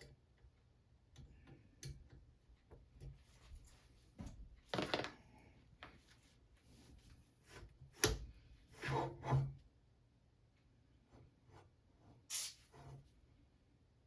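Scattered small clicks, taps and brief scrapes of metal barbell parts being handled and fitted during reassembly and greasing, with one sharp click about eight seconds in and a short run of scrapes just after.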